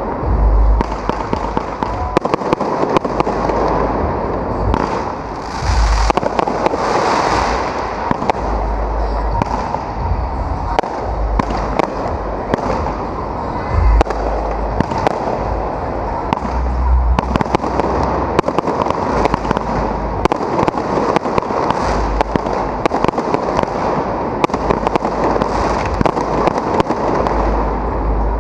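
Fireworks display: aerial shells bursting overhead in a dense, continuous run of crackling reports, punctuated by frequent deep booms.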